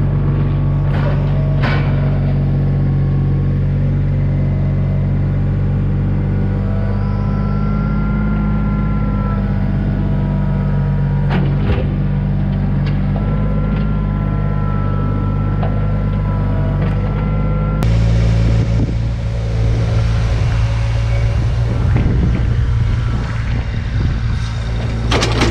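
A vehicle engine running steadily at an even speed, with a few short knocks. About two-thirds of the way through, the sound changes abruptly to a rougher, noisier engine note.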